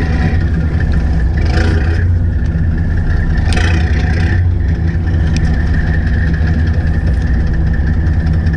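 Fishing boat's engine running steadily at idle, a constant low hum with a faint steady whine above it. Two brief rushes of noise come through about one and a half and three and a half seconds in.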